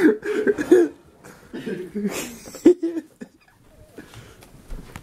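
A person's short, stifled vocal sounds, like suppressed giggling, in broken bursts, dying down after about three seconds.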